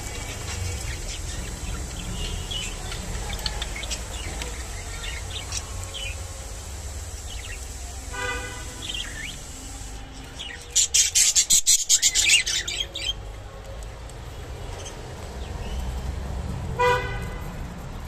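Budgerigars chirping and chattering softly over a steady low hum. About eleven seconds in, a loud rapid crackling rustle lasts a little under two seconds, and a short honk-like tone sounds twice.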